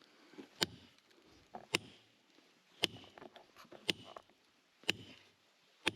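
A metal digging tool striking hard rock and mortar, about one blow a second, six blows in all, with loose rubble trickling between them.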